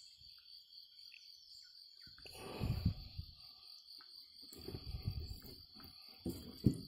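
Steady high insect chirring, with muffled rustles and bumps from a tapah catfish being gripped and turned by hand in a mesh landing net; the sharpest bump comes near the end.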